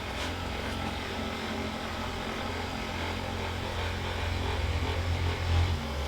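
Steady low mechanical hum, growing louder over the last two seconds and dropping off sharply just before the end.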